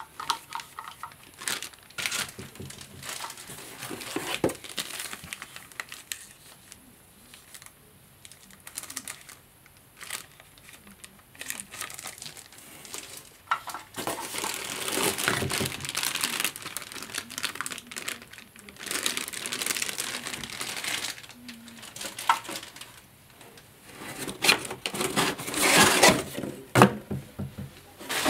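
Plastic bags crinkling and rustling as accessories are unwrapped and handled in a cardboard box, with scattered clicks and knocks. The crinkling comes in irregular spells, loudest around the middle and again near the end.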